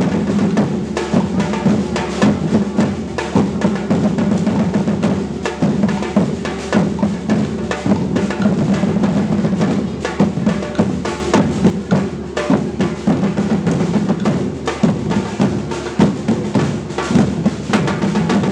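Percussion group playing drums together in a fast, dense rhythm of many strokes, over a steady low drum tone.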